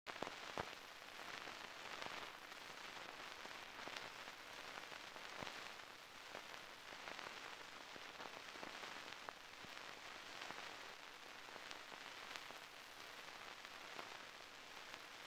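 Faint, steady hiss of an old film soundtrack, broken by scattered clicks and pops from dust and scratches on the worn print.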